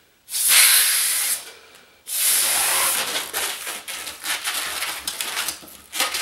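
Two long strokes of a hand balloon pump hissing air into a grey 260 latex twisting balloon, each about a second long. After them come short, irregular rubbing and crackling noises as the long inflated balloon is handled.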